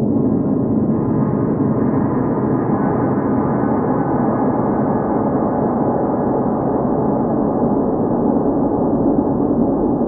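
Eerie deep-space sci-fi ambient drone: a dense, steady low hum with its weight in the low middle and almost nothing high, unchanging in loudness.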